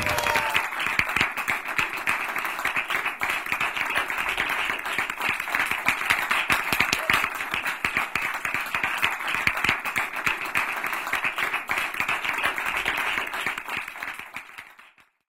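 A small group clapping their hands in applause, with many claps overlapping unevenly. The clapping fades out and stops near the end.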